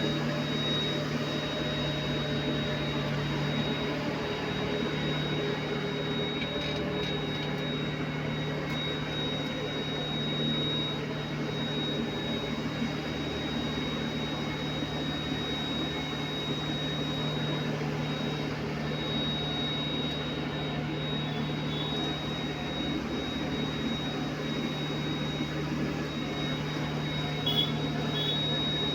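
A motor running steadily, a constant low hum with a thin high whine over it, unchanging throughout.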